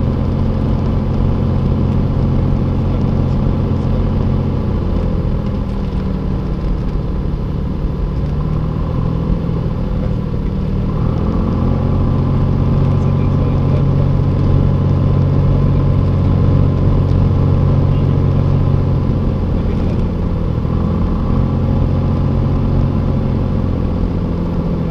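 Light aircraft's engine and propeller running steadily on the landing approach. The engine note drops about five seconds in and rises again about eleven seconds in.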